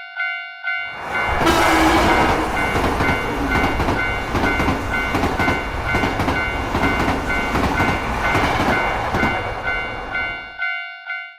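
Japanese railroad crossing warning bell ringing steadily about twice a second, while a train passes over the crossing from about a second in until near the end, its rumble and wheel noise nearly covering the bell. The bell cuts off at the very end.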